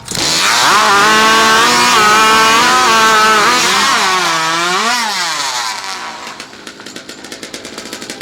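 Modified racing chainsaw (hot saw) firing and screaming at full throttle through a timber cut, its pitch dipping and recovering about four seconds in. After about six seconds it drops off to a fast, ticking idle.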